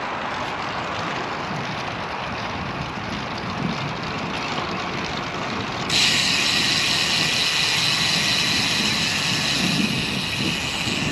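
Wind and road noise from riding a road bicycle, a steady rushing noise. About halfway in, a steady high-pitched buzz starts suddenly and holds to the end.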